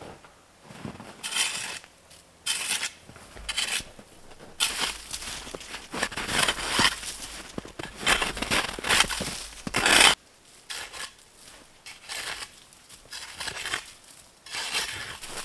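A small metal spade scraping and scooping snow and frozen leaf litter off the ground, in a run of crunchy strokes. The strokes come close together and loudest from about a third of the way in until two-thirds through. After that come sparser, quieter scrapes and rustles, then another cluster of strokes near the end.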